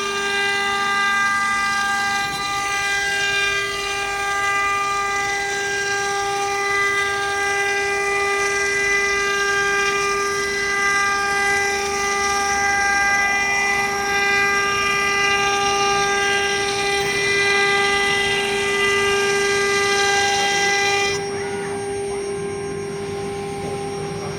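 AccTek AKM2040 CNC wood router running, a steady high whine with a stack of higher tones that shift as the machine works. About three-quarters of the way through, the upper tones and hiss drop away, leaving the steady whine.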